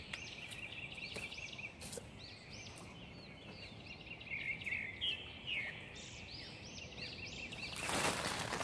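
Small songbirds chirping and singing, with quick repeated chirps and short trills. Near the end, a louder rustle as the chicken-feed sacks are grabbed and handled.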